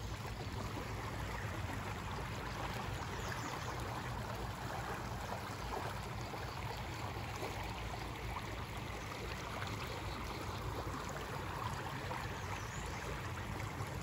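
Shallow creek flowing over a rocky riffle: a steady babble of running water.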